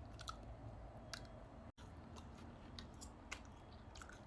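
A person chewing dried mango with the mouth close to the microphone: faint, irregular soft clicks and squelches.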